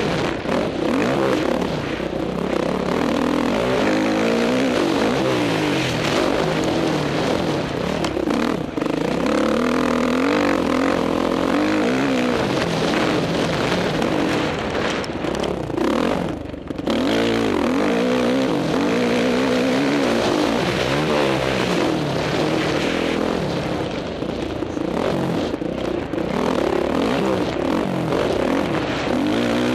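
Motocross dirt bike engine heard from a camera mounted on the bike, its pitch rising and falling over and over as the rider works the throttle and gears around the track. About halfway through the sound dips sharply for a moment, then picks up again.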